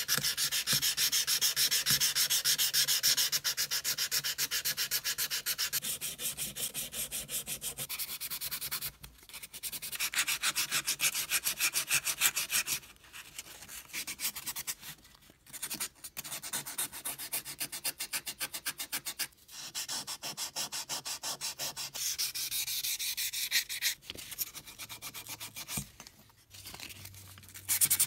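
Rapid back-and-forth hand sanding of steel vernier calipers to take off rust, in spells of quick even strokes broken by short pauses.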